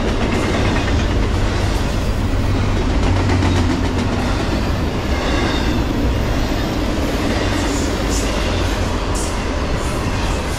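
Intermodal freight train's double-stack container cars rolling past: a steady rumble and clatter of steel wheels on the rails.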